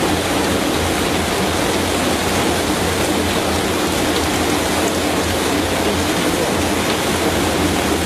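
Brush-roller potato washing and peeling machine running: potatoes tumbling and scrubbing against the rotating brush rollers under water spray, a steady rushing, splashing noise with a low hum underneath.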